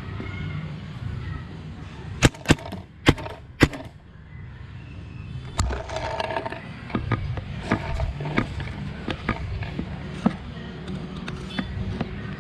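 Paintball marker shots: four sharp pops in quick succession about two seconds in, then a scatter of fainter pops and clicks through the rest.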